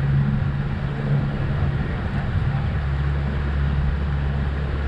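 A boat's motor running steadily, a low even hum as the boat moves along the lake.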